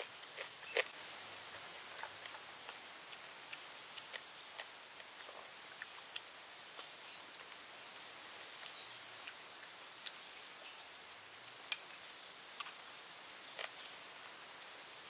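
Eating crispy deep-fried snake: irregular sharp crunches and clicks of chewing and handling the food, with a spoon clinking in a sauce bowl, over a steady hiss.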